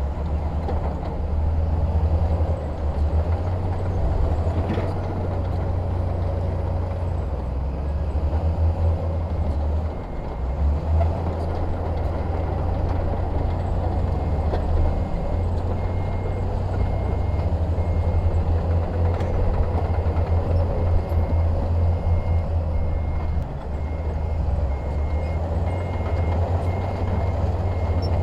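Heavy diesel construction machinery engine running steadily with a deep rumble, joined about twelve seconds in by a reversing alarm beeping at an even pace.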